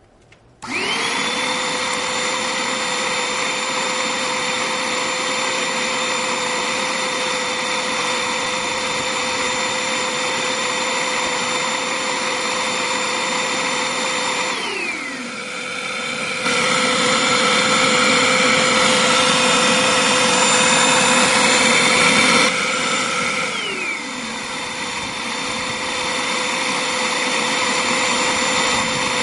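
Electric motor starting abruptly and running with a steady high whine. About halfway the whine drops in pitch and a louder, rougher rushing sound takes over for about six seconds, then the first running sound returns, its pitch sliding down once more.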